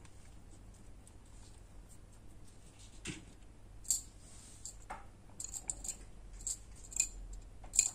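Small resin and paper embellishments clicking and rattling lightly as fingers sort through a box of them: a scatter of faint ticks, more frequent in the second half.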